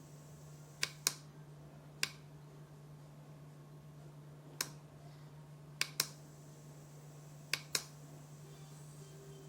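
Sharp short clicks, eight in all, several in close pairs about a fifth of a second apart, over a faint steady low hum.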